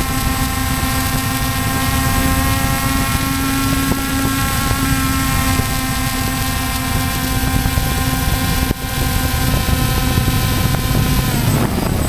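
Quadcopter's electric motors and propellers running with a steady multi-tone whine, heard from the drone's own camera, with wind rushing over the microphone. Near the end the pitch starts to fall as the drone comes down to the ground.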